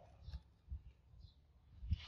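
Faint crackling and a few soft knocks as molten metal pours from a crucible into a steel mould.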